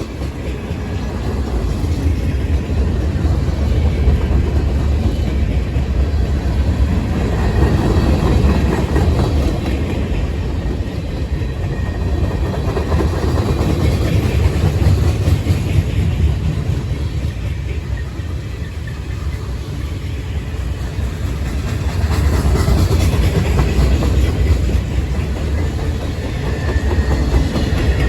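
Freight train rolling past on the rails, a steady rumble of cars and wheels that swells and eases.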